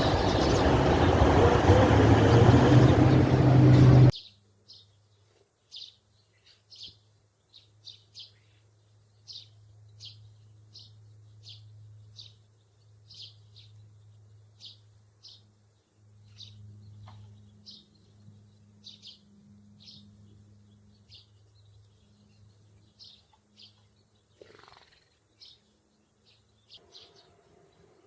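Sparrows chirping: short, high single chirps, about one or two a second. A loud rushing noise runs before them and cuts off suddenly about four seconds in, and a faint low hum comes and goes beneath the chirps.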